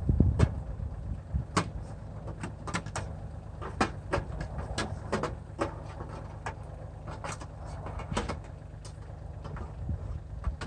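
Kioti CK2610 compact tractor's three-cylinder diesel engine idling steadily, with irregular sharp clicks and knocks over it, a few each second.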